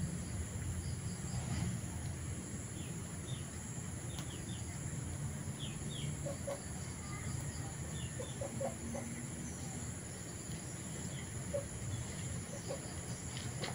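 Rural outdoor ambience: scattered short bird chirps and a few chicken clucks over a steady high insect hiss and a low rumble.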